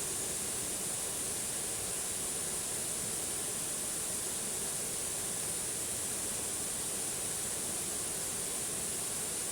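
Waterfall: a steady, unbroken hiss of falling water.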